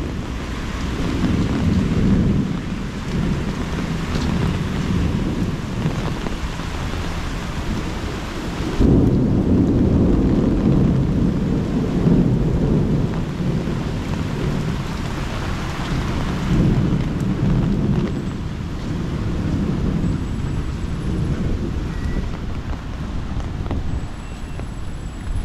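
Steady rain with thunder rolling in long swells of low rumble. A heavier rumble sets in suddenly about a third of the way in.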